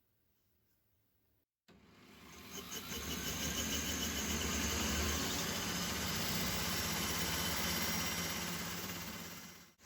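A small motor running steadily with a whirring hiss and low hum. It starts after a short silence, builds up over about a second and fades near the end.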